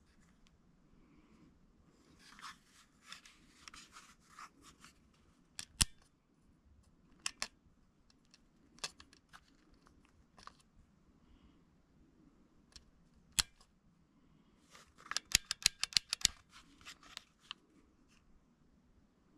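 Smith & Wesson M&P 40 non-blowback CO2 pistol firing: sharp single shots spaced a second or more apart, then a quick string of about half a dozen shots about 15 seconds in. Softer clicking and handling noise lies between them.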